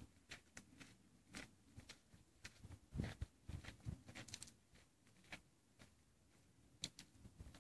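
Near silence, broken by scattered faint clicks and light rustles, a few a little louder around the middle and near the end; no shot is fired.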